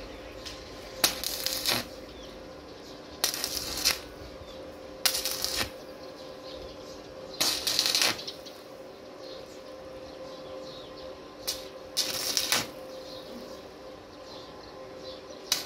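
Stick arc welder laying short tack welds on steel grill bars: about seven crackling, sizzling bursts, each under a second, spaced irregularly, over a steady hum.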